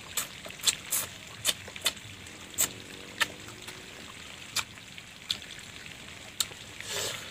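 Close-up chewing of crisp young ambarella (kedondong) fruit in spicy rujak sauce: a series of sharp, irregular crunches, several a second at first, then sparser.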